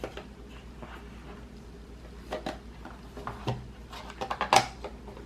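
Hands handling and opening album packaging: a few light taps and clicks, then a quick run of clicks about four seconds in, the loudest near the end.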